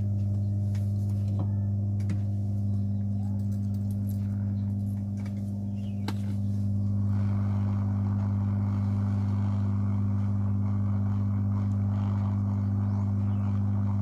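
Steady low electrical hum with a few handling clicks; about seven seconds in, a hot air rework gun's blower starts, adding a steady rushing hiss of air as it heats a phone circuit board to melt the solder under its chips.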